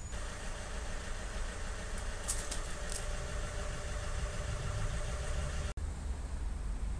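Vauxhall Movano 2.2 DTI four-cylinder turbodiesel engine idling steadily, with a few brief high-pitched sounds between about two and three seconds in. The sound cuts out for an instant near the end, then carries on.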